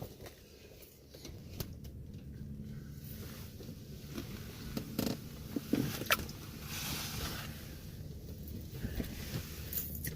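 Close handling noises: rustling, scraping and scattered clicks, over a faint steady low hum.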